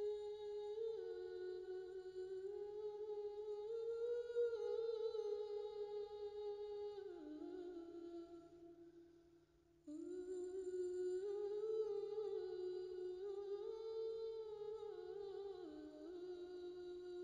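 A voice humming a slow, wordless melody, holding each note and stepping from note to note with a slight waver. It fades out about eight seconds in and starts again abruptly near the ten-second mark.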